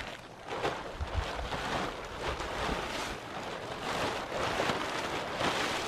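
Plastic tarp rustling and crinkling in irregular surges as it is pulled and spread over a wooden pole frame.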